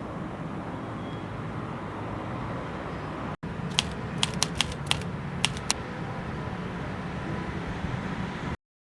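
A quick run of about eight sharp clicks or taps over under two seconds, after a brief cut, against steady low background noise; the sound stops abruptly near the end.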